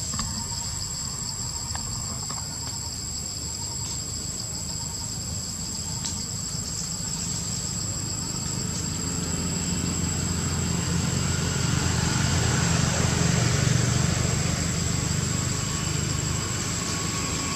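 Insects droning steadily at a high pitch, while a low engine rumble builds, is loudest about three-quarters of the way through, and then eases off.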